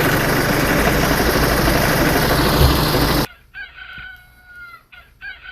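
A loud, steady rushing noise runs for about the first three seconds and stops suddenly. Then a toy rooster's recorded crow plays twice, a quieter cock-a-doodle-doo call of about a second each.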